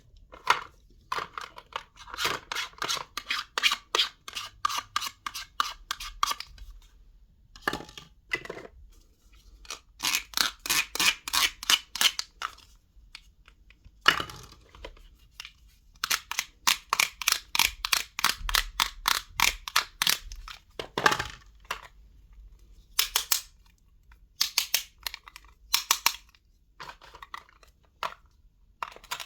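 Crisp crunching and cracking in runs of rapid sharp strokes, several a second, each run lasting a few seconds with short pauses between.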